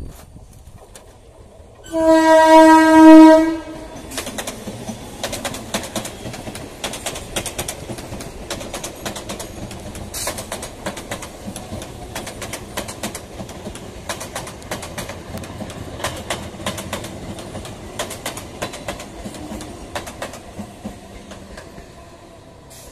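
An electric multiple-unit (EMU) local train sounds its horn in one loud blast of about a second and a half, a couple of seconds in. It then runs past with a fast, irregular clatter of wheels over rail joints.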